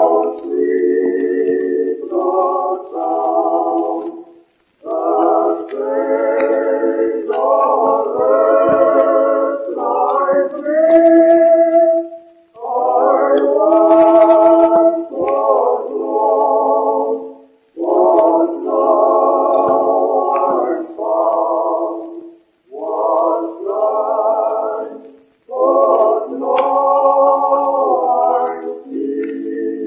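A choir singing slow, sustained chords with vibrato, in short phrases broken by brief pauses.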